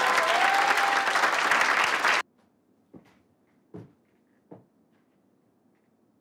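Audience applauding and cheering, cut off abruptly about two seconds in; then near quiet with three soft thumps.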